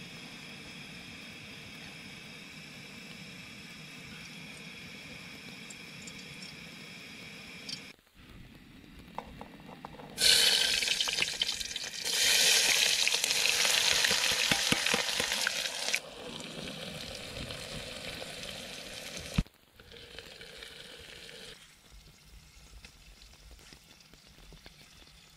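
Chopped red onions frying in hot oil in an aluminium pressure cooker. A loud sizzle starts about ten seconds in as the onions go into the pot and runs for several seconds, then drops to quieter frying.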